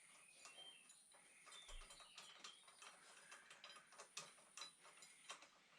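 Faint, irregular clicks and light taps of small metal parts and tools being handled while working on the engine and gearbox, growing more frequent about two seconds in.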